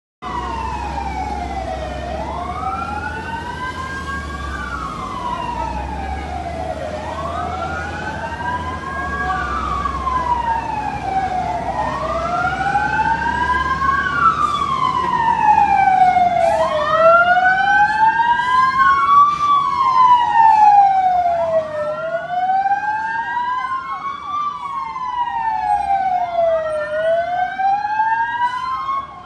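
At least two emergency-vehicle sirens wailing together, each sweeping slowly up and down in pitch about every five seconds, over a low traffic rumble. The sirens grow louder past the middle.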